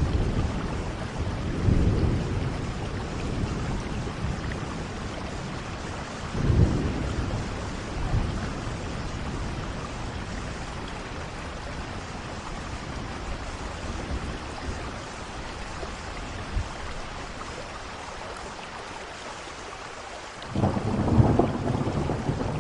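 Thunderstorm: steady rain with rolls of thunder, a rumble about two seconds in and another around six seconds, then a louder thunder rumble breaking in suddenly near the end.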